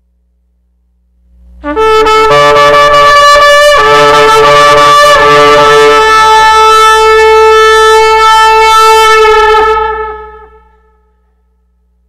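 Shofar blown in one long blast of about eight seconds: it shifts pitch a couple of times as it starts, then holds one steady, bright note and fades out.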